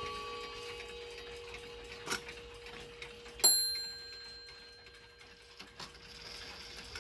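Antique mantel clock being set by hand with its bezel open: faint clicks and ticking, and one sharp metallic clink with a short high ring about three and a half seconds in. The last notes of a clock chime die away in the first second.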